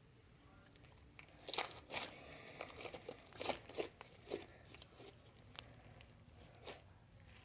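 Irregular crinkling and crackling from something being handled by hand, a string of short pops, the first about a second in.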